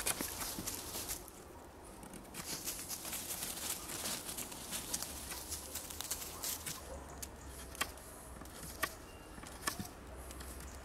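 Knife carving a wooden stick: irregular short scraping and cutting strokes of the blade on the wood.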